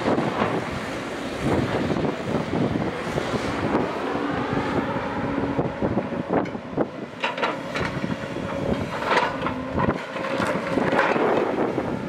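JCB tracked excavator's diesel engine running under load as the boom swings and the bucket digs, with several sharp clanks of the bucket on soil and rock in the second half. Wind buffets the microphone.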